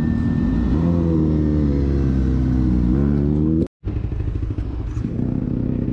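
Motorcycle engines running at low revs, with one engine's note rising as it accelerates about three and a half seconds in. After a brief cut, a motorcycle engine runs on with a rougher, uneven sound.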